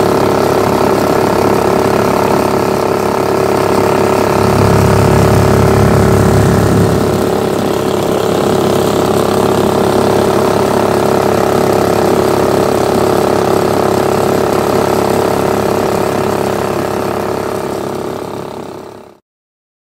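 Predator 420cc single-cylinder engine driving a Mud-Skipper surface-drive mud motor, running steadily with the boat under way. It gets somewhat louder and deeper around four to seven seconds in, then fades out near the end.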